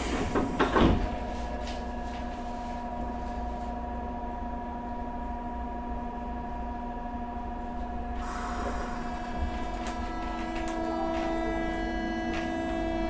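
Tokyo Metro 8000 series armature-chopper train heard from inside, standing with a steady hum of several electrical tones. There are a few knocks about a second in and a hiss about eight seconds in. Near the end a rising whine begins as the train starts to pull away.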